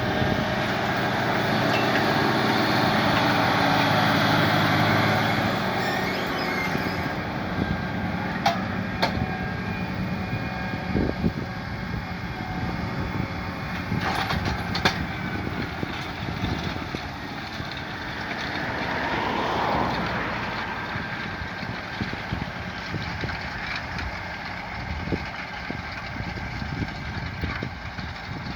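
Massey Ferguson 7718S tractor engine working under ploughing load, loudest for the first several seconds and then running on more faintly. A few sharp knocks come through in the middle, and the sound swells again briefly a little before the end.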